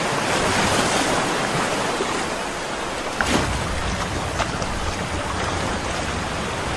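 Water washing and lapping as a steady surf hiss. About three seconds in, a deeper low rumble like wind on the microphone joins it, with a brief click.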